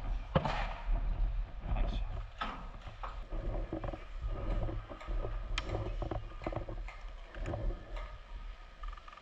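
Sporadic sharp clicks and snaps of airsoft gunfire and BBs striking nearby, over a low steady rumble.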